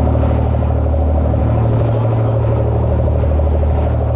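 Sportfishing boat's engine running, a steady low drone with no change in pitch.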